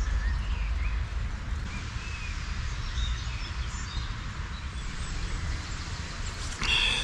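Outdoor ambience of birds chirping now and then, small brief calls over a steady low rumble, with a louder, short high sound near the end.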